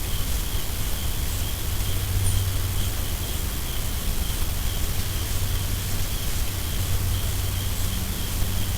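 Steady outdoor noise: an even hiss with a low hum underneath and a faint, steady high-pitched buzz running through it.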